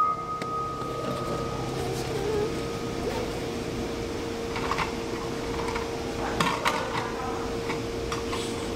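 A steady electronic hum runs throughout, with a higher beep-like tone fading away over the first few seconds. A few light clicks and knocks of toys being handled come about five seconds in and again a little later.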